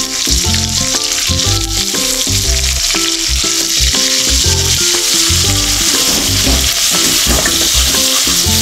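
Sliced onions frying in hot oil with cumin and bay leaf in a metal kadai, a steady sizzle, stirred with a spatula.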